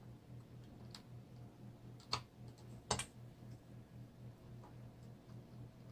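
Plastic LEGO pieces clicking as they are pressed onto a model: two sharp clicks a little under a second apart, with a couple of fainter ones, over a low steady hum.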